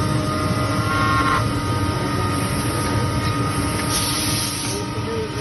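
Repaired machine-tool spindle motor running steadily on test, a continuous machine noise with a few steady tones over it.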